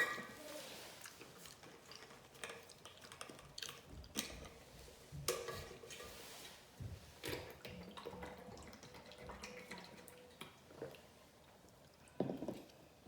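A person eating: wet chewing and mouth sounds with scattered short clicks and smacks.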